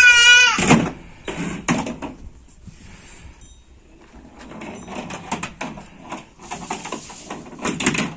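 A young child's high-pitched cry ending in the first half-second, then irregular clicks, knocks and clatter of plastic toy vehicles being handled.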